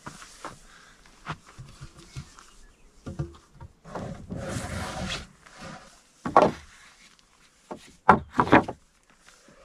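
Wooden lumber boards being unloaded from a pickup bed and dropped onto a stack: a scrape lasting about a second, then sharp wooden knocks as boards land, the loudest a quick cluster near the end.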